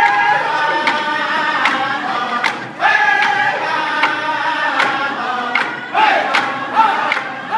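A group of singers singing a round dance song in high voices, with swooping note onsets, over a steady hand-drum beat of about one stroke every 0.8 seconds.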